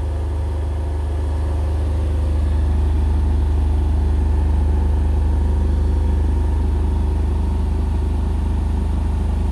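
Indesit BWE101683 front-loading washing machine in its final high-speed spin near its 1600 rpm top speed: a loud, steady drone with a deep hum, growing slightly louder about two seconds in. The load is slightly unbalanced.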